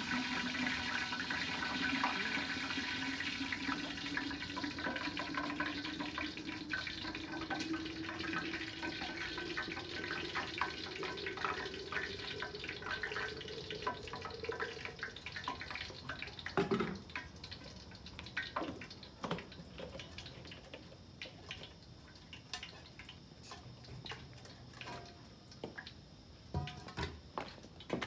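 Water poured from a metal kettle into a steel vacuum flask, its tone rising steadily as the flask fills for about fifteen seconds. Then scattered clinks and knocks as the vessels are handled.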